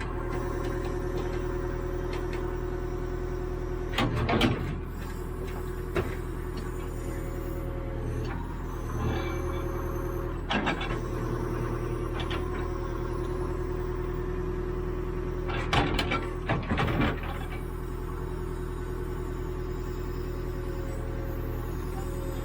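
CAT 428E backhoe loader's diesel engine running steadily, with short clanks and knocks about four seconds in, at six, at ten and a half, and a cluster around sixteen to seventeen seconds.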